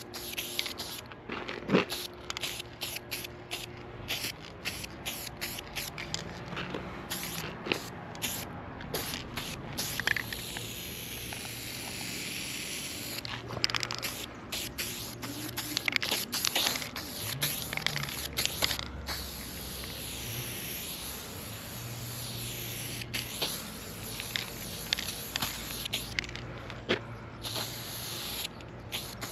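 Aerosol spray paint can hissing as paint goes onto a wall: mostly short bursts, with a few longer steady sprays.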